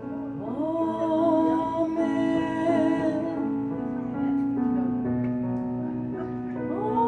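A woman singing long held notes over an electric keyboard played with a piano sound. Her voice slides up into a note held for about three seconds, the keyboard carries on alone, and near the end she slides up into another held note.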